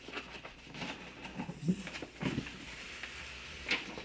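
Corrugated cardboard box being handled and its long top flap pulled open: scraping, rustling and a few dull knocks and clicks.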